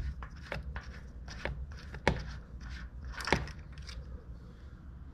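Scattered plastic-and-metal handling clicks and scrapes as the orange oil-fill dipstick cap on a Generac GP6500 generator engine is worked loose and pulled out to check the oil level. The two sharpest knocks come a little after two and three seconds in.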